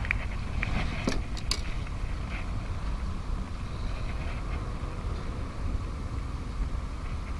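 Steady low outdoor rumble, with a few sharp clicks a little over a second in.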